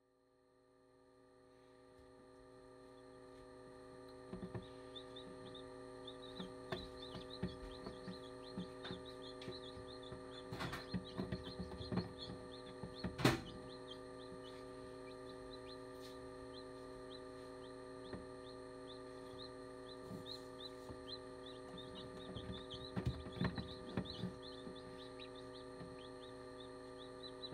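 Newly hatched chicks peeping in rapid, continuous short chirps over the steady hum of an incubator's fan. Scattered knocks and taps come through, the loudest about 13 seconds in. The sound fades in over the first few seconds.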